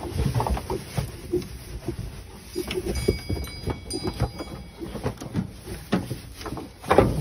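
Irregular knocks, clunks and rustling from a crate being handled on straw bedding inside a wooden pen, with a louder thump about seven seconds in.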